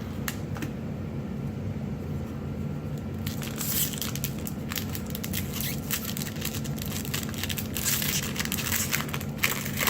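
Foil Magic: The Gathering booster pack wrapper crinkling and tearing as it is pulled open, with cards rustling and snapping as they are handled. The crinkling comes in bursts from about a third of the way in and is densest near the end, over a steady low room hum.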